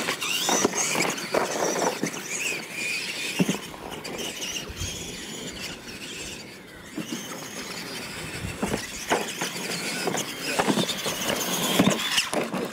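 Electric radio-controlled monster trucks racing over dirt: a high motor and gear whine that rises and falls with the throttle, with a few sharp thumps as the trucks hit and land off jumps.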